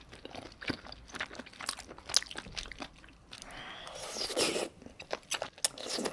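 Close-miked eating of spicy mala tang soup: wet chewing clicks and smacks, then, about three and a half seconds in, a long slurp of noodles lasting about a second, followed by more chewing.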